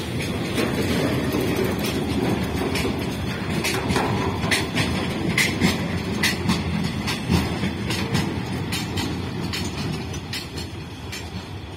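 A train running on rails: a steady low rumble with many sharp, irregular clicks.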